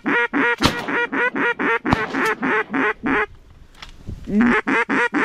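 Duck call blown in fast, even runs of loud mallard-style quacks, about five a second. It stops about three seconds in and starts again near the end. Two sharp cracks sound during the first run.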